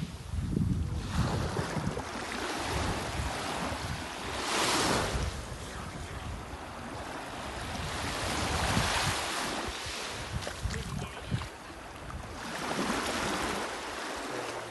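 Small sea waves washing in to shore, swelling about every four seconds, with wind buffeting the microphone.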